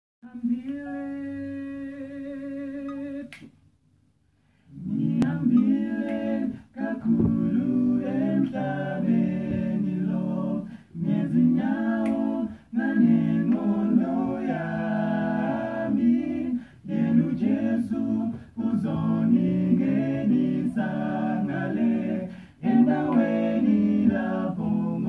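Male vocal group singing a cappella in close harmony. A single steady note is held for about three seconds at the start, then after a short pause the voices come in together, singing in phrases separated by brief breaths.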